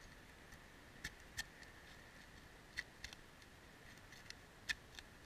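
About six light, sharp taps and clicks at uneven spacing, the loudest near the end, as a metal roof clip for a de-icing cable is fastened to asphalt shingles with a hammer, over a faint steady hiss.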